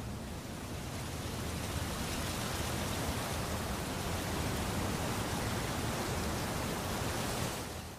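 Steady, even hiss of noise with no distinct events, swelling slightly and fading out near the end.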